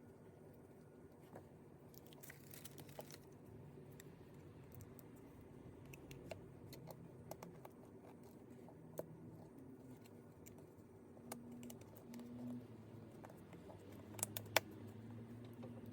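Faint, scattered small clicks and taps of a precision screwdriver and small phone parts being handled while a phone is reassembled, with a few sharper clicks near the end, over a faint low hum.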